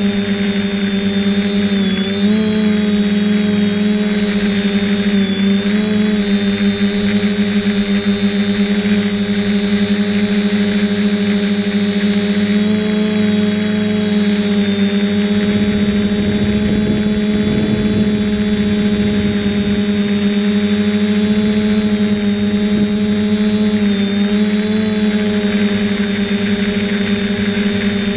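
Drone's electric motors and propellers whining steadily, the pitch wavering briefly a few times as the throttle changes. Wind buffets the microphone for a few seconds about halfway through.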